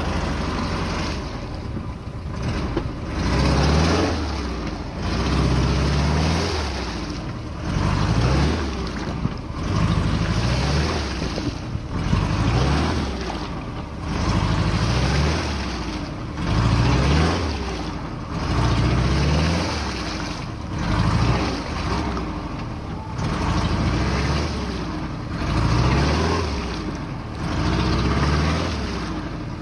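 ZAZ-968M's rear air-cooled V4 engine revved up and let back again and again, about once every two seconds, as the car works through deep mud.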